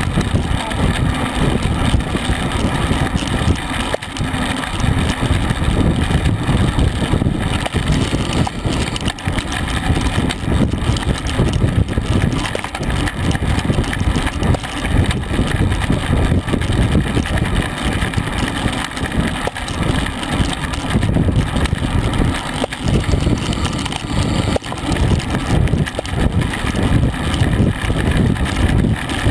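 Wind buffeting the microphone of a camera on a road bike riding at racing speed, about 23 mph: a loud, low, unsteady rumble.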